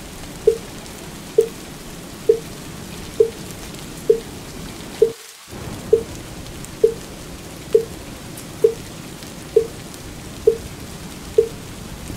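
A wooden fish (mu yu) struck in a steady slow rhythm, a single hollow knock a little more often than once a second, over the even hiss of steady rain. The rain cuts out for a moment about five seconds in.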